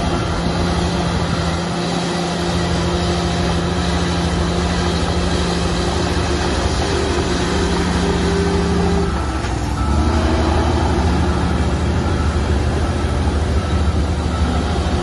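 Heavy diesel engines of earthmoving machinery running steadily. About nine seconds in the engine note changes and settles lower and deeper.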